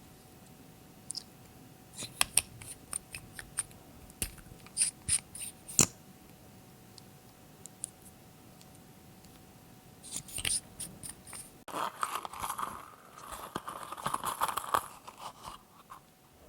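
Slime being handled by hand: a run of small sticky clicks and snaps, then about four seconds of dense crackling and crinkling near the end.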